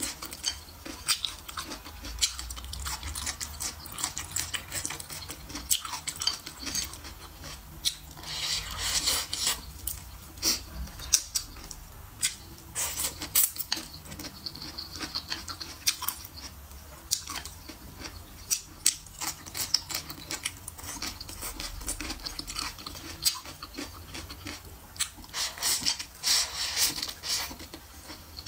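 Close-miked eating sounds: wet chewing and slurping of noodles, with a longer slurp about eight seconds in and another near the end. Short clicks from wooden chopsticks tap against a ceramic bowl throughout.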